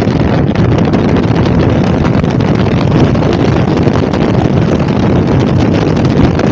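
Heavy, steady wind rush buffeting the microphone on a motorcycle riding at road speed, with the bike's engine and road noise blended in underneath as a low drone.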